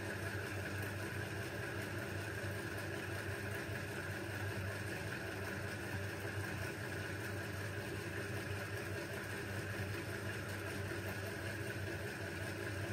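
A steady machine hum with a faint, constant higher tone, unchanging throughout, with no distinct clicks or knocks standing out.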